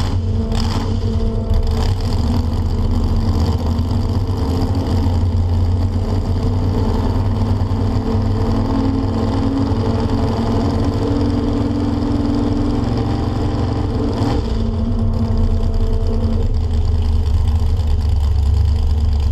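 Chevrolet S-10 pickup's engine running loud and steady under a burnout test, with a slight rise in pitch about halfway through.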